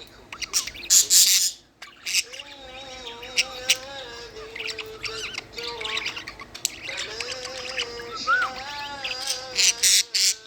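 Pet budgie squawking and chirping: sharp squawks in the first couple of seconds and near the end, with long held, slightly wavering whistle-like notes in between.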